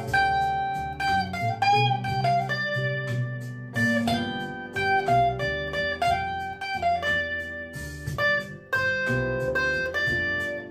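Blues guitar playing a run of plucked single notes, some slightly bent, over a repeating low bass part.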